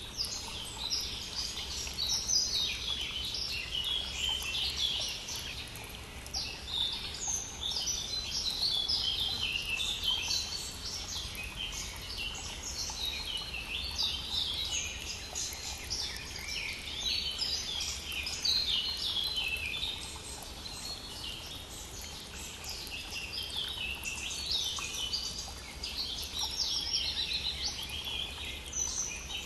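Many songbirds singing at once in a dense spring chorus, phrase after phrase overlapping throughout, over the faint steady rush of a stream.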